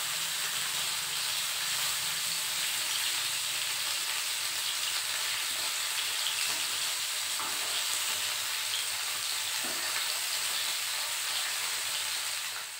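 Pieces of tilapia fish sizzling steadily as they shallow-fry in oil in a nonstick frying pan, with the occasional scrape of a spatula turning them. The sizzle dies down just before the end.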